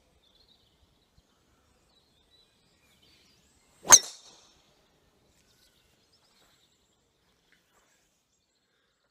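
Golf driver striking a ball off the tee: one sharp metallic crack about four seconds in, with a brief ring after it.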